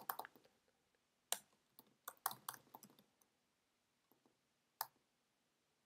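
A few scattered keystrokes on a computer keyboard, with near silence between them: a single tap about a second in, a quick run of taps around two seconds in, and one more tap near the end.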